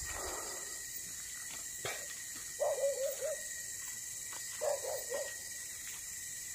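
Two short, wavering animal calls, about two seconds apart, over a steady high drone.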